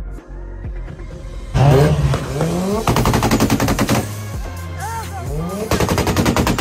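Mazda RX-7's rotary engine revving up about a second and a half in, then banging on a two-step launch limiter: two spells of rapid machine-gun-like exhaust pops, the second near the end, over background music.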